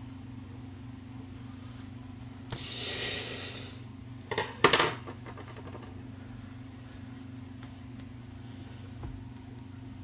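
Handling noise from a metal typewriter being worked on: a brief rustling scrape about three seconds in, then two sharp knocks about a second later, over a steady low hum.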